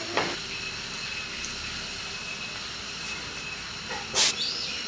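Steady hiss of outdoor background noise with a faint high whine, broken once by a short sharp knock about four seconds in.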